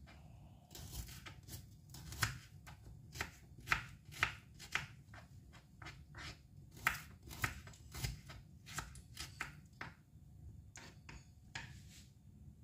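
Kitchen knife slicing shallots on a cutting board: a run of irregular knocks of the blade on the board, about two a second, thinning out near the end.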